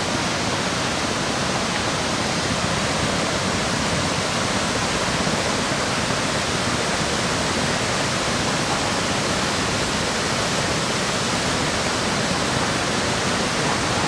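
Whitewater rushing steadily over a rock cascade at a waterfall, the river running high after a typhoon.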